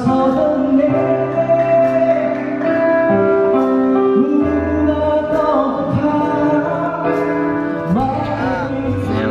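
A song with a singing voice over long held keyboard chords and a bass line that steps to a new note every second or so.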